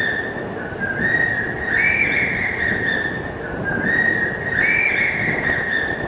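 A whistled tone that steps up in pitch and holds, repeating in the same pattern about every three seconds over a steady rushing noise, like a looped background track.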